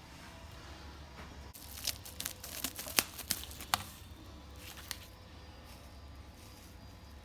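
Handling noise: a few seconds of crinkling and sharp crackling clicks, the loudest about three seconds in, over a faint steady low hum.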